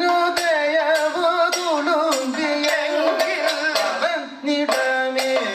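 Kathakali music: a voice singing a slow melody with ornamented pitch glides, over sharp metallic percussion strokes about twice a second that keep the beat.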